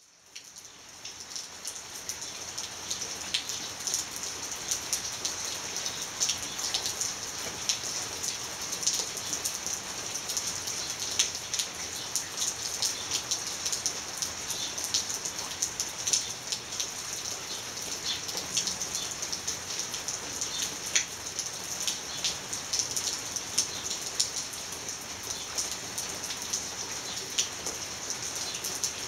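Steady rain, a dense hiss with many separate drops ticking through it, fading in over the first couple of seconds and then holding even.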